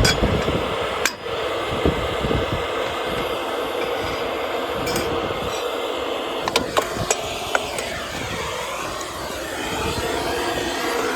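A steady rushing noise, with a few sharp metallic clinks about six to seven seconds in, and a whoosh whose pitch sweeps as it passes near the end.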